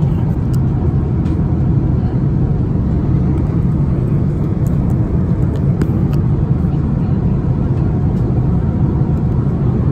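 Steady low rumble of an Airbus A330-300 in flight, engine and airflow noise heard from inside the passenger cabin, with a few faint ticks.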